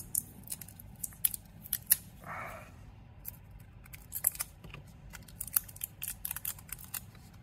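Kapton tape being pried up and peeled off a USB stick's circuit board with a snap-off utility knife blade: a string of small, irregular clicks and crackles, with one short scrape about two seconds in.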